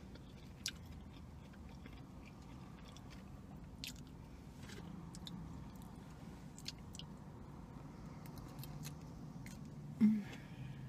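Close-up mouth sounds of someone chewing a spinach, chicken and mango salad, soft and wet with a few light clicks, and a brief hummed "mm" near the end.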